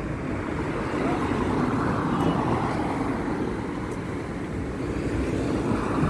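Road traffic passing close by: a steady hum of car engines and tyres on the road that swells and eases as vehicles go past.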